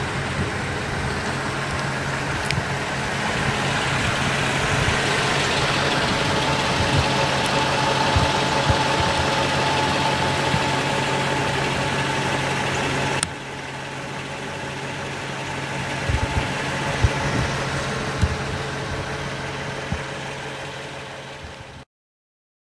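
A motor vehicle engine running steadily with a low hum, growing louder through the middle. The sound drops abruptly to a quieter stretch of similar engine noise about thirteen seconds in, then cuts off just before the end.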